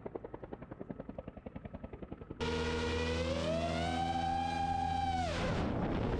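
Aircraft propeller or engine noise: a rapid even chopping, then an abrupt change to a louder whine that rises in pitch, holds, and falls away near the end.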